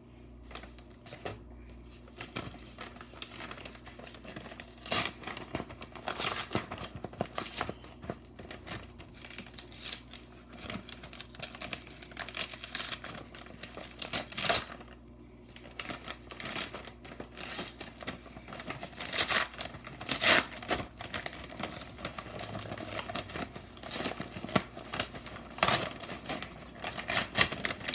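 Packing material rustling and crinkling as hands dig through a cardboard box filled with packing peanuts, with irregular crumpling and some tearing of wrapping.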